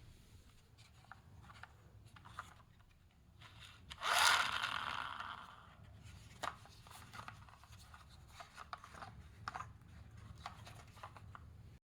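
Small objects handled at close range, with scattered light clicks and rubbing. About four seconds in comes a louder scraping rustle that rises quickly and fades over a second or so.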